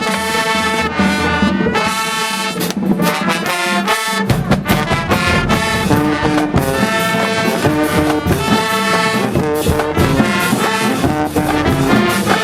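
High school marching band playing from the stands: the brass section, with trombones and trumpets, plays a loud tune in sustained chords, with drum hits underneath.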